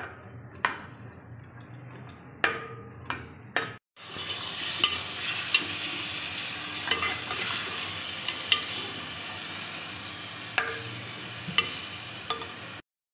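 Chicken pieces frying in hot oil in an aluminium pot, sizzling steadily while a steel spoon stirs them and clanks against the pot about once a second. The sizzle is quieter at first and much louder after a brief break about four seconds in.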